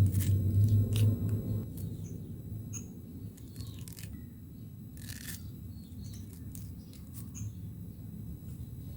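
Knife cutting pineapple into chunks on a cutting board, with a few scattered knocks of the blade, and faint bird chirps in the background. A low hum fades out in the first couple of seconds.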